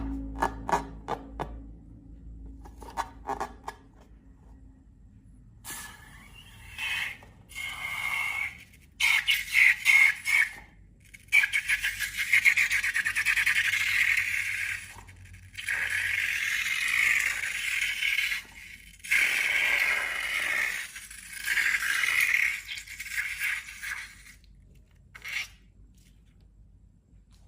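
Scraping handling sounds in bursts of one to three seconds, after a run of quick clicks at the start.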